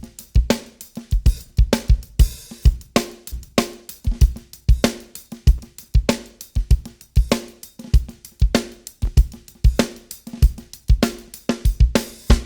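Drum loop with kick, snare, hi-hats and cymbals playing a steady beat, run through the TK Audio Transformer saturation box with its first harmonics stage and drive being switched in and out; the saturation is subtle, a little crunchy on the kick drum.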